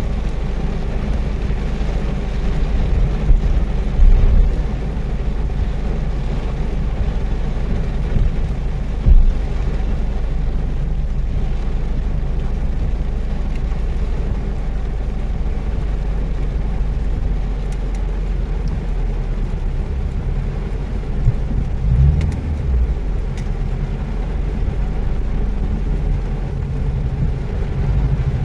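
Car cabin while driving in heavy rain: a steady low rumble of engine and tyres, with rain on the windshield, broken by a few low thumps a few seconds in, around nine seconds, and again around twenty-two seconds.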